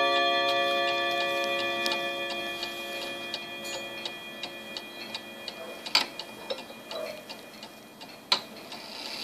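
Junghans Württemberg half-chime table clock: the tones of its chime rods die away after a chime, and the movement's ticking comes through as the ringing fades.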